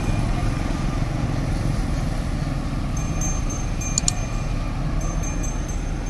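Steady low rumble of passing road traffic and wind, with a thin, high ringing tone that comes back about halfway through and a single click a second later.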